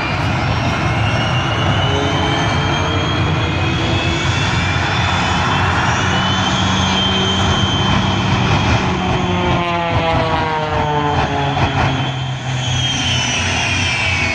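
Jet truck's jet engines running hard with afterburner, mixed with an airplane's engine, in a loud continuous noise with high whistling tones. From about nine seconds in, a set of tones slides down in pitch as a vehicle passes.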